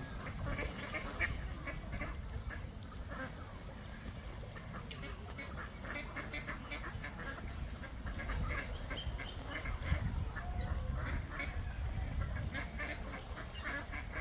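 Ducks quacking repeatedly, several short calls overlapping, over a steady low background rumble.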